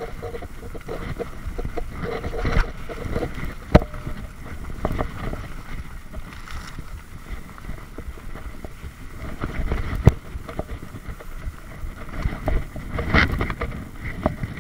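Mountain bike rattling and clattering over a rough dirt trail, with wind buffeting the microphone. A couple of sharp knocks stand out, the loudest about ten seconds in.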